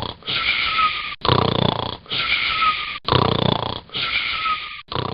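Rhythmic snoring, one breath roughly every two seconds. Each rattling snore alternates with a wheezing, whistling breath.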